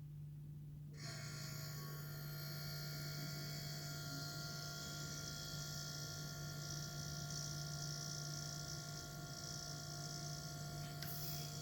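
A refrigerator's cooling fan and its replacement conventional compressor switch on about a second in, the fan's PWM signal triggering the compressor through a solid state relay. After that they run with a steady whir and hiss over a low electrical hum.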